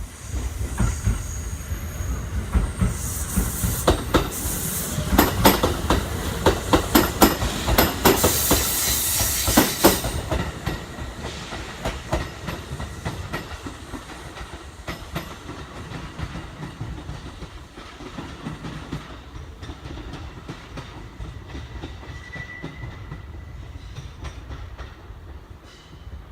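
Kintetsu electric train rolling over the station's rail joints and points, a quick run of wheel clacks with bursts of hiss in the first ten seconds, then a quieter rumble that fades as it moves off, with a brief faint squeal near the end.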